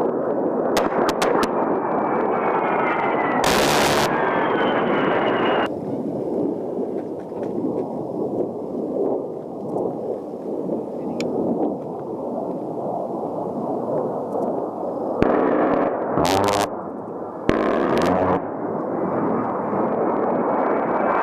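A-10 Thunderbolt II's two TF34 turbofan engines passing low, a steady rush with a whine that slides in pitch. Short, very loud bursts of its GAU-8 Avenger 30mm Gatling gun cut through it, one a few seconds in and several more close together later.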